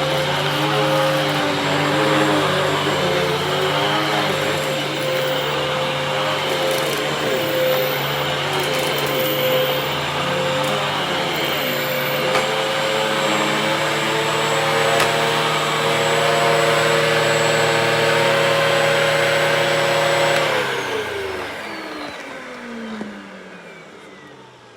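Secondhand Hoover vacuum cleaner running, its motor tone wavering in the first half and then steady; about 20 seconds in it is switched off and the motor winds down, its pitch falling away. The machine is clogged and has weak suction.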